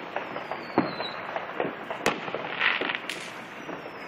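Fireworks going off: three sharp bangs about a second apart, with a falling whistle near the start and crackling between the bangs.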